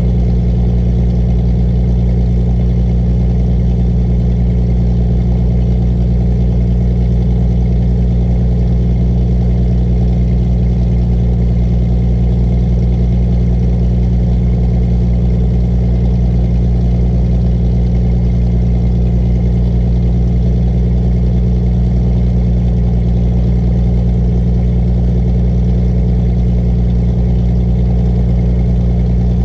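Piper Chieftain's piston engine and propeller running steadily at low power while the twin taxis, with no change in pitch or level.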